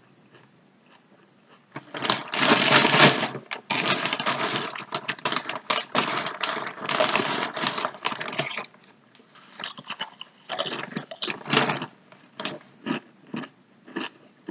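Sun Chips bag crinkling as it is handled: a loud, dense crackle for about seven seconds starting about two seconds in, then a pause and a run of shorter crackles.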